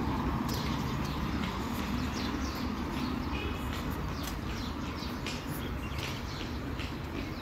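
Many small birds chirping in short, quick calls over a steady low rumble of city traffic.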